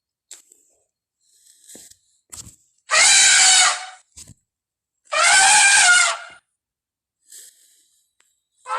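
Elephant trumpeting: two loud, brassy trumpet calls, each lasting about a second, a couple of seconds apart, with a third call starting at the very end.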